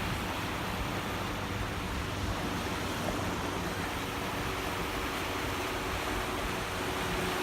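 Steady wash of wind and surf noise on the beach, even throughout; a faint steady hum comes in near the end.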